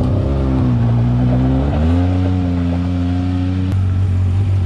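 Arctic Cat Wildcat XX side-by-side's three-cylinder engine idling steadily, its pitch shifting slightly about two seconds in, with a single light click later on.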